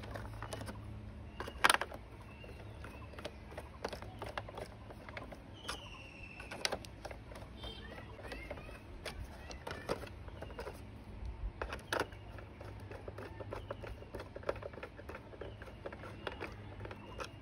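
Small hand screwdriver driving screws into the plastic underside of a toy school bus: scattered light clicks, ticks and scrapes of the screwdriver and plastic parts being handled, over a low steady hum.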